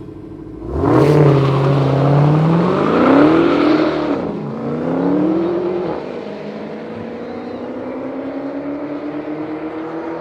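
Dodge Challenger Hellcat V8s launch hard in a drag race about a second in. The engine note climbs, dips at gear changes near four and six seconds, then carries on as a quieter, slowly rising drone as the cars pull away down the strip.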